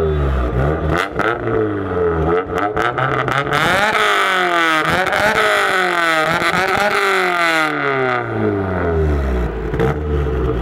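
Toyota Corolla sedan's 4A-GE blacktop engine revved repeatedly through a large single exhaust: quick blips at first, then several higher, longer climbs and falls in pitch in the middle, settling back to idle near the end.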